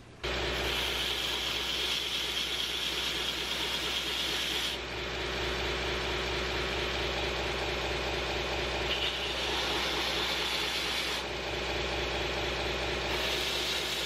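Belt grinder running steadily, its abrasive belt grinding against a CPM 154 stainless steel knife blade over a constant motor hum. The higher whine of the grinding drops away about five seconds in.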